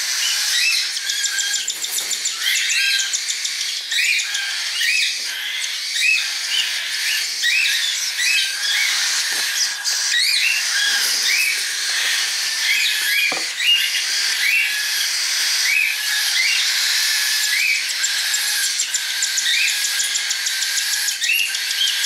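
Cockatiel chicks begging to be fed: a steady raspy, hissing chatter with a short rising chirp repeated about once a second.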